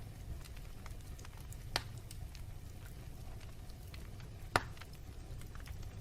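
Wood fire burning in a fireplace: a low steady rumble of the flames with scattered small crackles, and two sharper pops from the logs, the louder one near the end.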